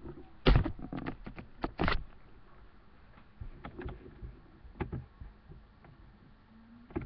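Handling noise: a series of sharp knocks and clicks of hands and a small plastic toy figurine against a wooden table. The loudest knock comes about half a second in, a cluster follows before two seconds, then only a few lighter taps.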